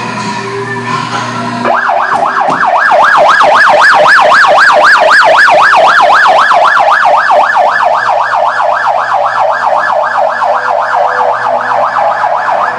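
Loud warbling siren sound effect from a dark ride's sound system, sweeping up and down about four times a second. It cuts in about two seconds in.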